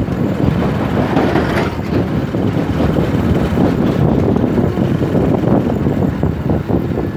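On-board sound of a motor vehicle running along a road: a steady low rumble of engine and road noise.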